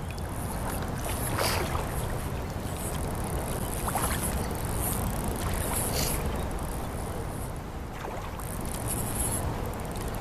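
Footsteps wading through shallow water, a slosh about every two seconds, over a steady rumble of wind and handling on the microphone.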